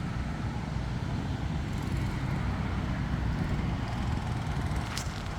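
Steady low rumble of a car running, with one sharp click near the end.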